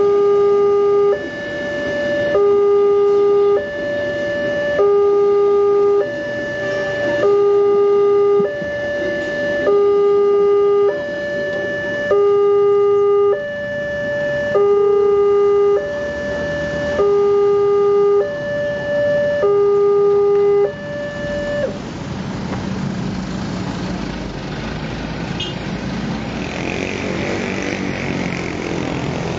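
Railway level-crossing warning alarm sounding from its pole-mounted loudspeaker: a loud electronic two-tone call, a low tone and a higher tone alternating about every second. It cuts off about 21 seconds in as the crossing clears, and road vehicle engines follow.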